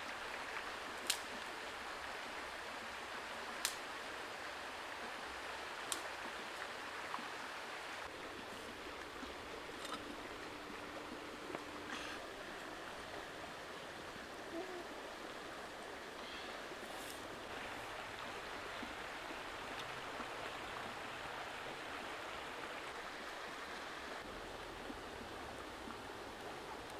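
Steady rushing of a shallow stream over stones, with a few sharp clicks scattered through, the loudest three in the first six seconds.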